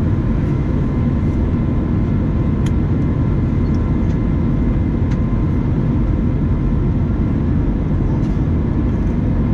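Steady in-flight cabin noise of an Airbus A321neo: the low, even rumble of the engines and the rush of air past the fuselage, heard from a window seat beside the wing, with a faint steady hum above it.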